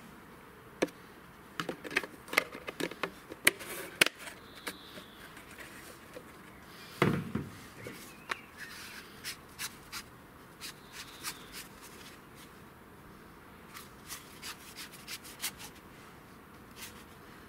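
Plastic parts of a downpipe rain collector being handled and pushed together: the mesh filter insert going into its housing and the plastic reducer pieces being fitted, giving scattered sharp clicks and taps, with one louder knock about seven seconds in.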